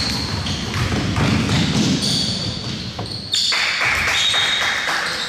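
Basketball game sounds echoing in a gym hall: thuds of the ball and players' feet on the court, with short high-pitched sneaker squeaks.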